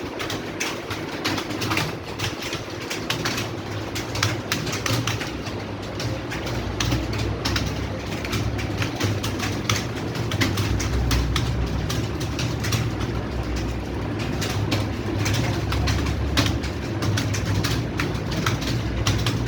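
Many computer keyboards clattering at once as a room of typists type fast in a timed typing test: a dense, irregular patter of key clicks. A low hum grows louder about six seconds in.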